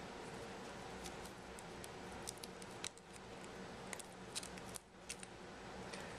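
Light, sharp clicks and ticks from handling the phone and its small parts, scattered through the second half, over a steady low hum.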